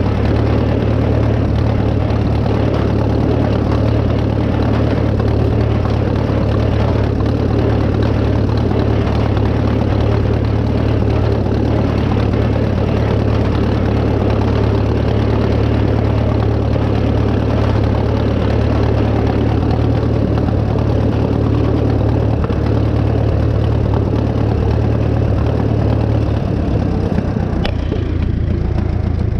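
Farmall F-20 tractor's four-cylinder engine running steadily while working. Near the end the engine note drops and changes, with a single sharp click.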